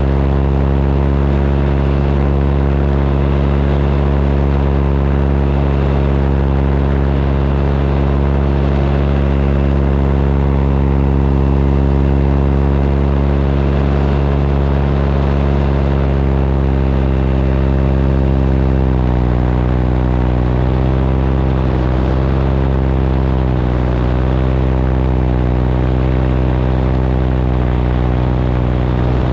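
Powered paraglider (paramotor) engine and propeller running steadily in flight. About two-thirds of the way through the pitch drops slightly and then wavers up and down as the throttle is eased and varied.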